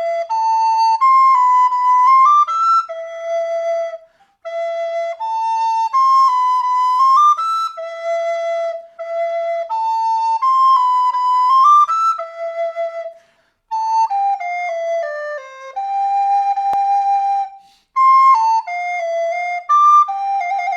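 A recorder playing a melody: clear, breathy single notes moving up and down in steps, in phrases separated by short pauses.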